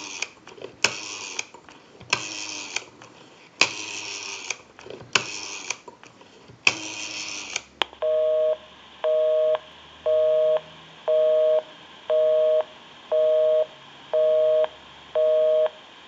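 Automatic Electric Monophone rotary dial whirring back five times as a number is dialed. Then, from about eight seconds in, the line's busy signal: a two-tone beep, half a second on and half a second off, about once a second, meaning the number called is engaged.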